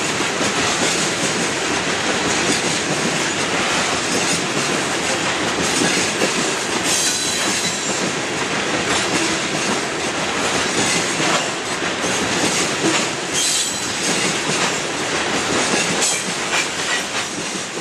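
Covered hopper cars of a grain train rolling past, their steel wheels clattering steadily over the rail joints, with a few brief high wheel squeals.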